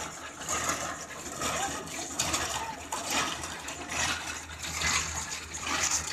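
The homemade crane's 5 HP electric motor runs its winch through the gearbox with a low hum that comes and goes, under a steady rushing noise.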